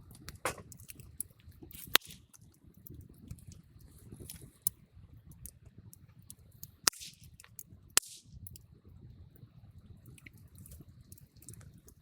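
Wood campfire crackling over a low rumble, with scattered sharp pops from the burning wood; the loudest come about two seconds in and twice more, a second apart, past the middle.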